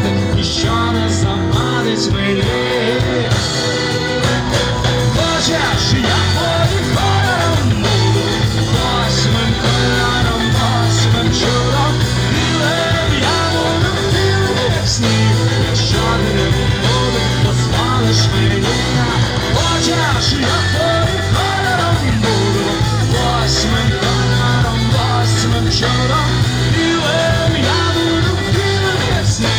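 Live rock band playing a song with singing, guitars and drums, at steady full volume throughout.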